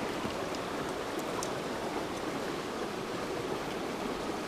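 Shallow creek running over rocks: a steady rush of water, with a few faint ticks.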